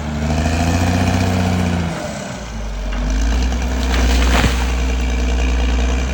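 Caterpillar D6R XL bulldozer's diesel engine running, its note dropping about two seconds in and then picking up again. A short sharp clank or crack comes a little past four seconds.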